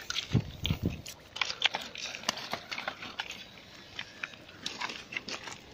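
Irregular crunching and clattering of river pebbles underfoot and under wheels on a shallow gravel riverbed, with a couple of dull thumps within the first second.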